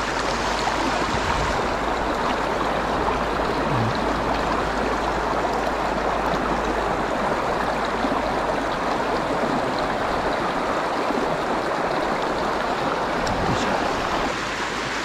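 Shallow mountain stream rushing over rocks, a steady close wash of flowing water; it gets a little quieter near the end.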